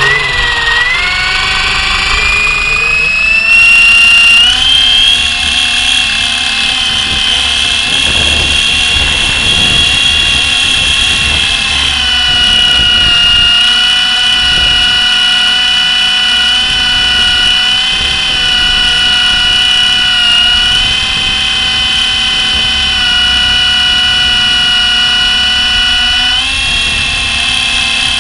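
Blade SR electric RC helicopter's motor and rotor whining as they spool up over the first few seconds, then running steadily with small shifts in pitch as it flies. Low wind rumble on the microphone underneath.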